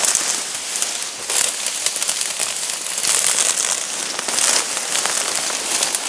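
Dry reed stems rustling and crackling as people push through a dense reed bed and trample the stalks underfoot, a thick, irregular crackle with no pause.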